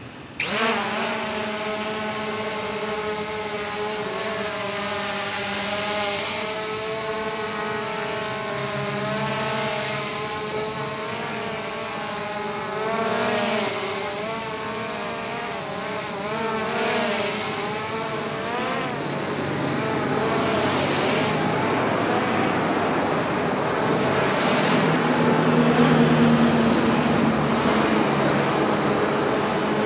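Small quadcopter drone's rotors spin up abruptly about half a second in, then run on as a steady whine of several tones that waver in pitch as the drone flies. Passing street traffic swells and fades underneath, loudest near the end.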